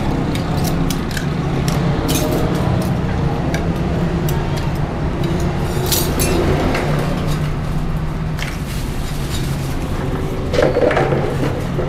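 Glasses and metal utensils clinking again and again over a steady hum of road traffic.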